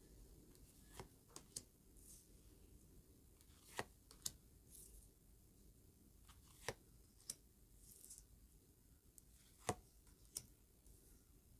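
Tarot cards being drawn from the deck and laid one by one onto a tabletop: faint scattered taps and soft swishes of card sliding on card.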